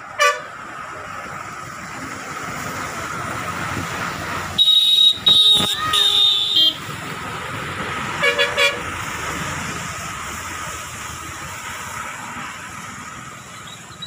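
Road traffic on a bridge with vehicle horns honking. There is a short toot at the start, a louder, high-pitched horn in several blasts about five to seven seconds in, and a quick double toot about eight seconds in.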